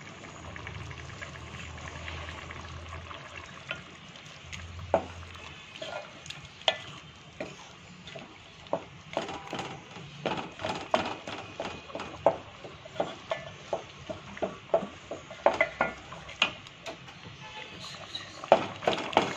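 Wooden spoon stirring thick cooked chana dal and gourd in a metal pot. The spoon knocks against the pot's side, now and then at first and then about twice a second from around nine seconds in, over a steady low hiss.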